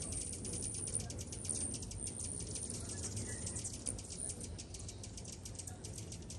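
Many hummingbirds at feeders chattering and chipping: a fast, steady run of high ticks, with a low hum underneath.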